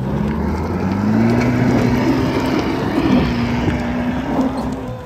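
Mahindra Thar SUV's engine revving hard under load as it claws over a loose dirt-and-rock mound, wheels spinning and throwing dirt. The revs climb in the first second, hold high and wavering, and fall away near the end.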